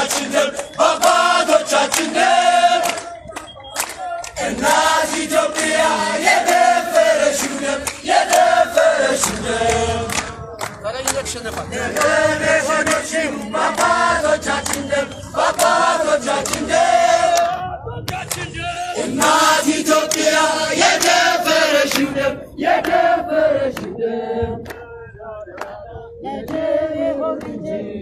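A group of people singing an Amharic patriotic song together, phrase by phrase with short breaks between lines.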